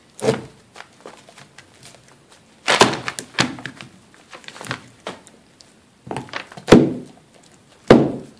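A large dog gnawing a big raw soup bone, the bone thunking against the wooden board beneath it about five times, with quieter crunching and scraping in between.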